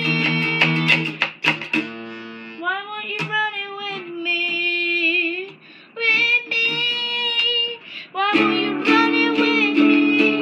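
A boy singing while strumming chords on an acoustic guitar, with short breaks between sung phrases and the strumming growing fuller and louder about eight seconds in.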